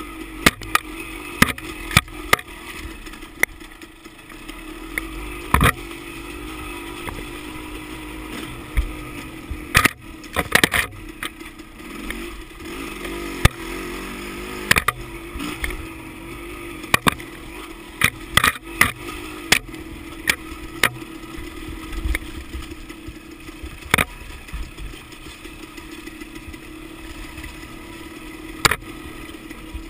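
Dirt bike engine running at a fairly steady pitch while riding a rough trail, with frequent sharp knocks and clacks as the bike jolts over bumps.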